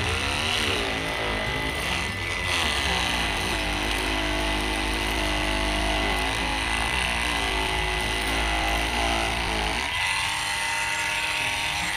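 Cordless oscillating multi-tool (INGCO CMLI2001, 20 V) running as its blade cuts through the hard husk of a durian, its pitch wavering as the blade bites. The low end of the sound drops away about ten seconds in.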